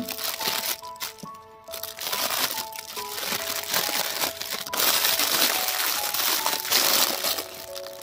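Clear plastic bag crinkling as hands handle a toy tractor sealed inside it, loudest from about five to seven seconds in. Background music with held notes plays under it.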